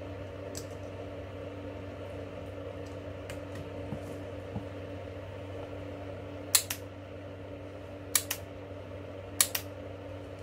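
Sharp clicks in three quick pairs during the second half, from the leads and motorcycle starter relay of a homemade spot welder being handled, over a steady low hum.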